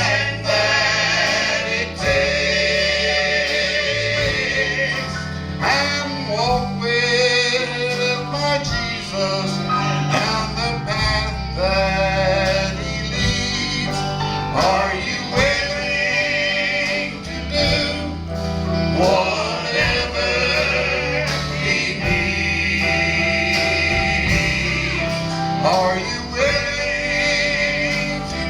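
Male gospel quartet singing a song in close harmony, long held notes over instrumental accompaniment.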